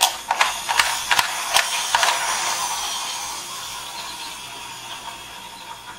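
Plastic toy double-decker bus's wheels spun by hand, its wheels and gears rattling with a few sharp clicks in the first two seconds. After that they whir on and fade away gradually as they spin down.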